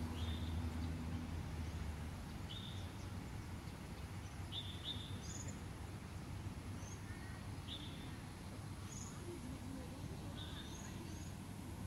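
Birds chirping outdoors: short, high chirps every second or two, a few pitched higher, over a low steady outdoor rumble. A low hum fades out about a second in.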